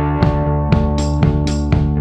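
Music with a steady drum beat under sustained chords.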